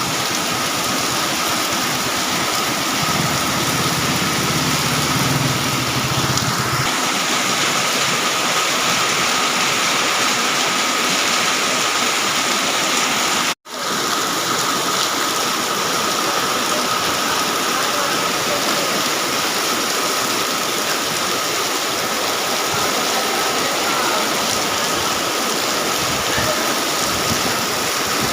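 Heavy rain pouring down in a steady, dense hiss. A low rumble runs under it for a few seconds near the start, and about halfway through the sound cuts out for a split second before resuming.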